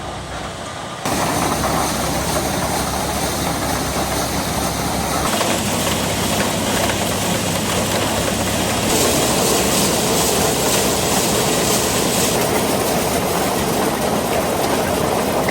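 Allis-Chalmers L3 combine running, a loud, steady machine noise that starts abruptly about a second in.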